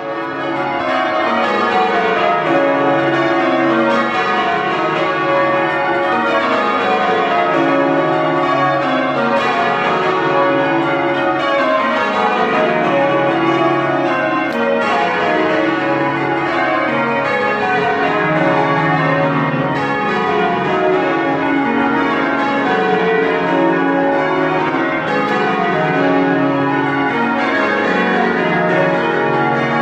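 Cathedral ring of Whitechapel-cast church bells being rung full circle. Each row of strikes steps down the scale from the highest bell to the lowest, and the rows repeat steadily, as in rounds.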